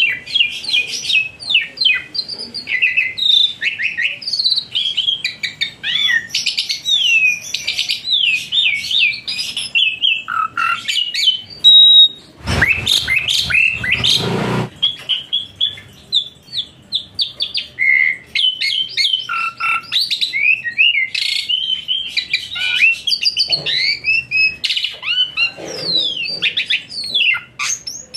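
Small songbird singing a rapid, varied song of quick chirps and sweeping whistled notes. About halfway through, a loud clattering noise lasts about two seconds.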